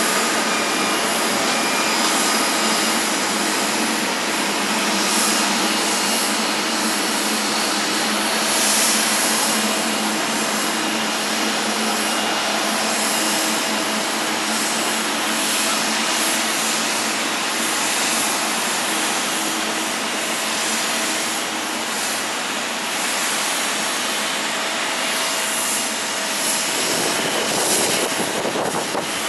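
Jet airliner engines running: a steady rush of noise with several held tones, the lower tones fading out near the end.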